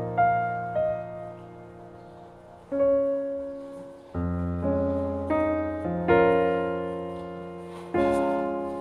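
Background piano music: slow chords, each struck and fading away, with a new chord every second or two.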